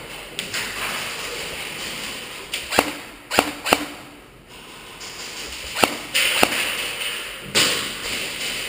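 Airsoft guns firing single shots: five sharp snaps, two of them close together, spread over a few seconds above a steady background hiss.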